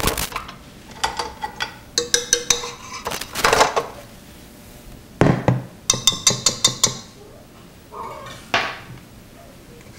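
Stainless steel stand-mixer bowl and wire whisk attachment clanking and clinking as they are taken off the mixer. There are two quick runs of ringing metal clinks with a heavier knock between them.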